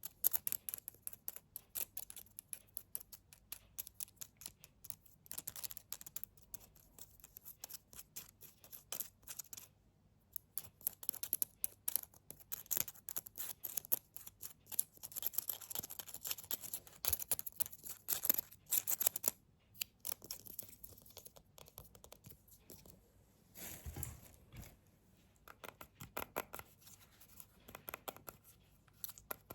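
Close-miked ASMR tapping and knocking: rapid, irregular light taps and scratches with crisp high-pitched detail, and a few duller, lower knocks about two-thirds of the way through.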